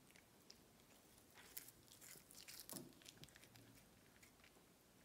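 A cat biting off and chewing blades of fresh cat grass: faint, crisp crunching and clicking, busiest and loudest between about one and a half and three seconds in.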